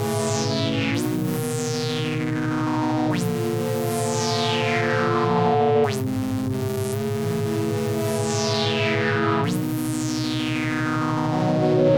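Pittsburgh Modular Taiga Keyboard analog synthesizer playing sustained chords that change every two to three seconds. Each new chord brings a bright sweep falling in pitch, over a rapidly pulsing low note.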